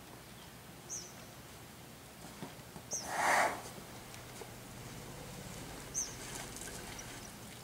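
A bird's short high chirps, heard three times a few seconds apart, with a single short, loud, breathy whoosh of air about three seconds in.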